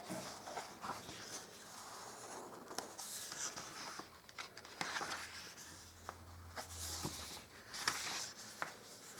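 Faint, irregular scratching and rustling with a few small sharp clicks.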